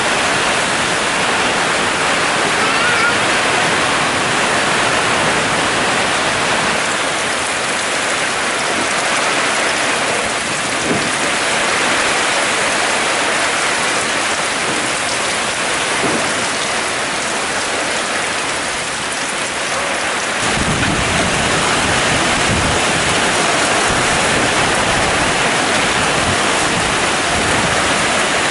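Heavy rain and gusting wind of a thunderstorm, a loud, steady rush of noise. About two-thirds of the way through, wind buffeting the microphone adds a low rumble.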